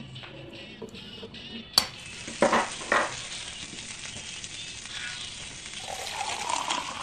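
Egg frying in a pan on a gas stove: a steady sizzle that sets in about two seconds in, after a few sharp knocks. Near the end, a drink poured from a steel thermos into a ceramic mug, its pitch rising as the mug fills.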